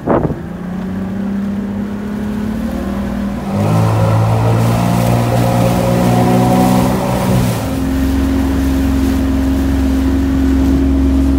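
A 135 hp Mercury two-stroke V6 outboard is run up under load as the boat climbs onto the plane, its drone rising a little in pitch, then settling to a steady high note once the boat is planing. A brief sharp noise sounds right at the start, and the engine sound jumps abruptly twice where the view changes.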